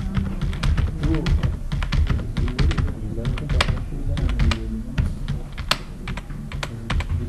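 Computer keyboard being typed on: a quick, uneven run of key presses, with a few harder strikes partway through.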